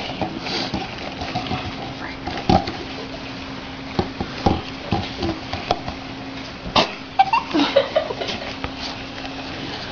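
Handling noises: a plastic cup knocked and rubbed against a table several times, with rustling as a stretchy cover is worked over it, over a steady low hum.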